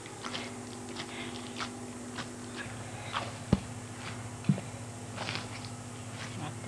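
Hand-kneading of saj flatbread dough in a metal basin: irregular soft slaps and squishes, with two sharp knocks about three and a half and four and a half seconds in, over a faint steady hum.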